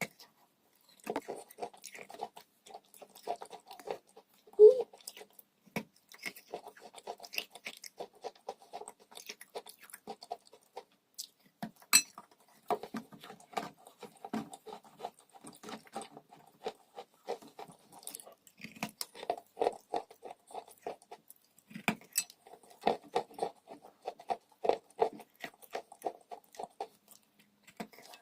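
Chalk crunching and crumbling: a dense, irregular run of small crackles and snaps, with a few sharper cracks, one about four and a half seconds in and another about twelve seconds in.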